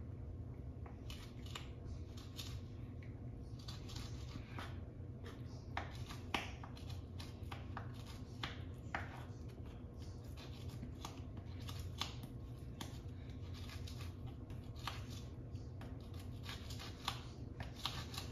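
Kitchen knife cutting a lime on a plastic cutting board: many irregular short taps and slicing clicks as the blade chops through the fruit and meets the board, over a steady low hum.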